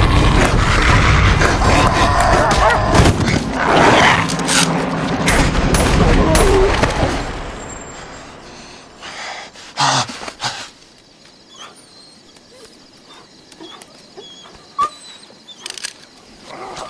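Movie fight sound of dogs attacking: a loud, dense mix of animal snarling and many sharp hits. It dies away about eight seconds in, leaving only scattered small clicks and knocks.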